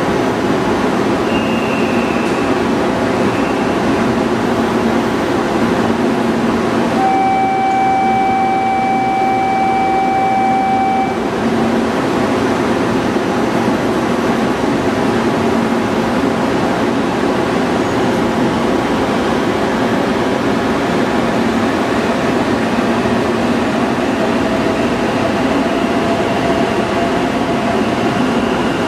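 Steady hum of an E2 series Shinkansen's onboard air-conditioning units as the train stands at the platform. About seven seconds in, a steady electronic tone sounds over it for about four seconds, then stops.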